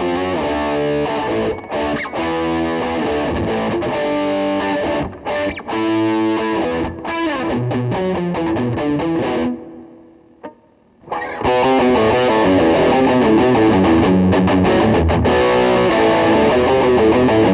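Replica Gibson Les Paul Custom electric guitar played through distortion, with its replaced electronics: picked lines and chords with short breaks, a brief near-silent pause about ten seconds in, then denser, louder playing to the end.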